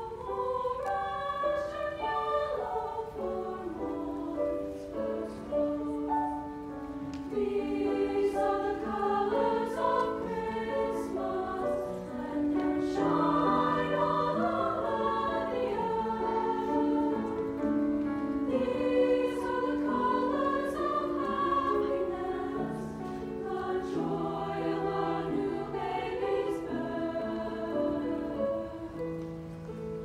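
Large mixed choir of female and male voices singing in harmony, holding sustained chords that shift every second or so.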